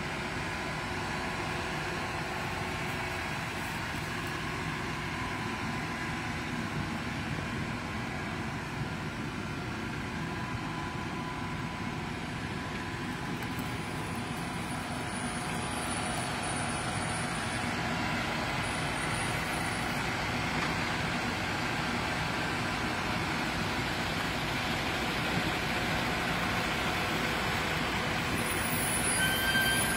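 Mecalac 15MC excavator's diesel engine and hydraulics running steadily under load as it holds a six-tonne Mecalac 6MCR excavator aloft, growing a little louder in the second half. A brief high tone near the end.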